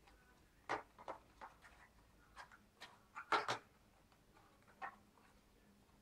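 Irregular clicks and light knocks of a metal drive caddy being handled and fitted into a laptop's drive bay. The loudest come as a quick cluster of three or four clicks a little past three seconds in.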